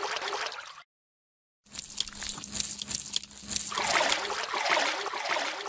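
Water trickling and splashing, dubbed in as a sound effect. It cuts off abruptly for about a second near the start, then resumes and is loudest near the end.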